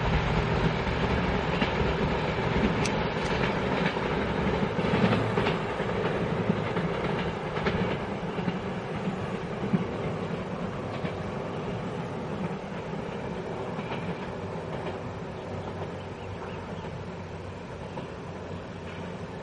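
Taiwan Railways TEMU1000 Taroko Express tilting electric multiple unit rolling away over the station's points, with scattered wheel clicks in the first half. The running noise fades steadily as the train draws off into the distance.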